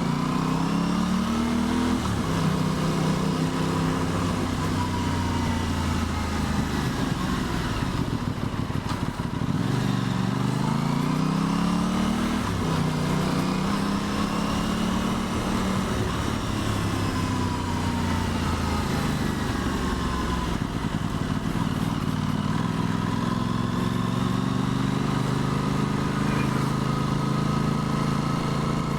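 Aprilia Tuono 660's 659 cc parallel-twin engine heard from the rider's seat, rising and falling with the throttle. It pulls up in pitch near the start and again about ten seconds in, with steady cruising between.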